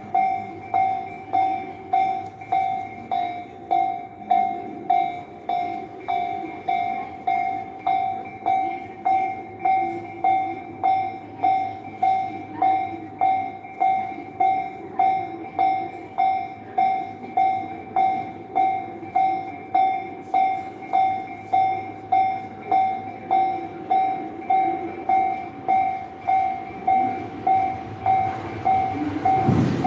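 Japanese railroad crossing alarm bell ringing steadily, about three dings every two seconds, with a low rumble underneath.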